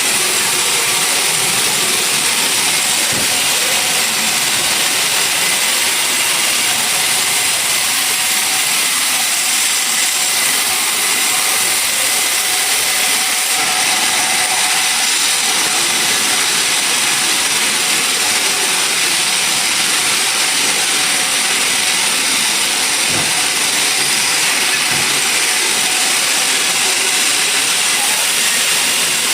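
Sawmill machinery running steadily, a constant hissing whir that does not change.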